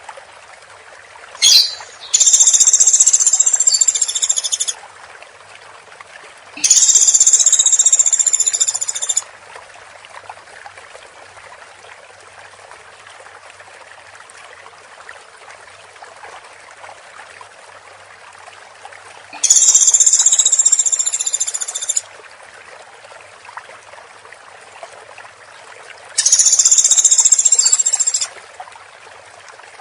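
Woodpecker giving loud, dense, high-pitched rattling calls: four bursts of about two seconds each, with a single short sharp note about one and a half seconds in, over a steady faint hiss.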